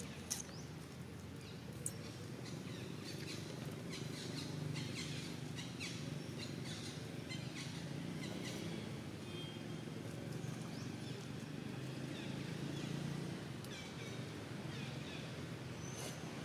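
Outdoor ambience: scattered short bird chirps over a steady low hum, with a couple of sharp clicks right at the start.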